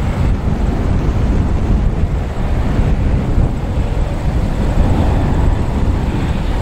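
Heavy wind buffeting the microphone over the approaching grain train's diesel-electric locomotives, a pair of 81 class and a BL class, running under power.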